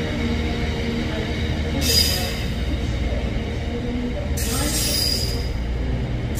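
Freight train of open box wagons rolling past: a steady rumble of wheels on rail with wavering squealing tones, and two short bursts of high hiss and squeal, about two seconds in and again around the fifth second, as the last wagons go by.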